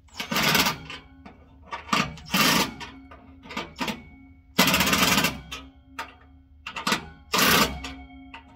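Cordless 3/8-inch-drive impact wrench hammering on a muffler's exhaust clamp bolt in short bursts, about seven in all, the longest near the middle, as the clamp is run down snug.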